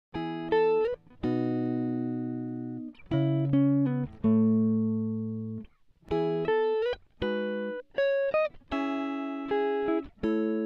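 Background music: a plucked guitar plays a slow melody of single notes and short phrases, each note ringing and then fading.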